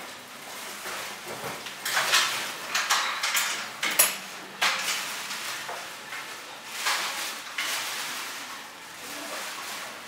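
Small irregular clicks, taps and rustles of hands working a piece of material with a small metal hand tool at a sewing machine table, with a sharp click about four seconds in.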